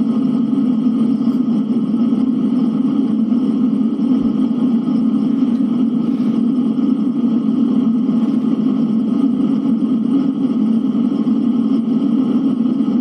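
Steady, unchanging blizzard wind noise, a low rushing sound without gusts or breaks.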